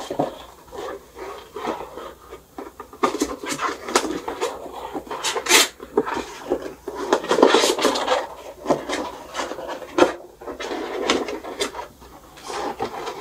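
Flat-pack shoebox being handled and folded by hand: irregular rubbing and scraping with sharp clicks and crinkles.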